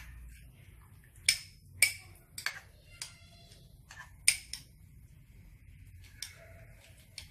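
Metal spoon stirring a thick sauce in a small ceramic bowl, clinking against the bowl in several sharp, irregular taps, one of which rings briefly.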